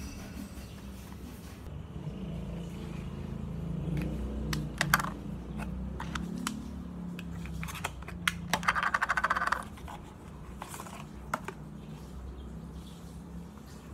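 Small cardboard cosmetics box being handled and opened: light taps and clicks, with a short stretch of rapid crackling a little past the middle as the box comes open, over a low steady hum.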